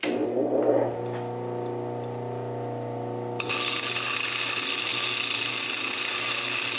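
Baldor buffer's motor running with a steady hum. About three seconds in, a star dresser is pressed against the spinning silicon carbide grinding wheel, and a loud, high-pitched screeching grind starts and holds. This is the star dresser opening up and sharpening the wheel's face after diamond dressing.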